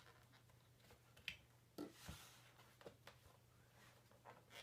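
Near silence with a few faint, scattered clicks and ticks: the plastic case of an iBook G4 being pried apart with a screwdriver, its snap clips working loose.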